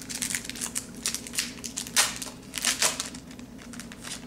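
Trading cards being handled by hand: a run of crisp rustling and sliding scrapes of card stock, loudest about two seconds in and again a little after.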